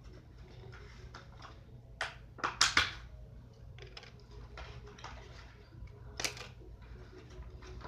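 Plastic blister packaging being handled and opened: scattered crinkles and sharp clicks, with the loudest cluster of snaps about two and a half seconds in and another about six seconds in.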